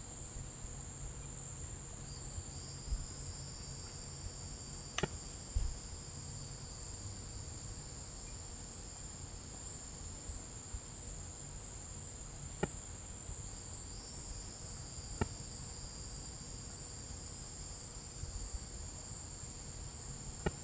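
Night insect chorus: a steady high-pitched cricket-like trill, with a second, lower trill that comes in twice for several seconds. A few sharp clicks stand out above it.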